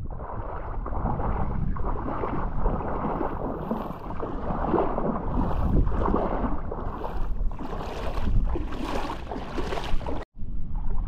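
Wind buffeting the camera microphone in gusts, with a few brief hissing flares. The sound cuts out abruptly about ten seconds in.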